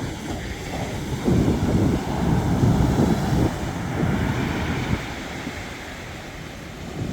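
Sea surf washing on the beach with wind buffeting the microphone, gustiest between about one and five seconds in.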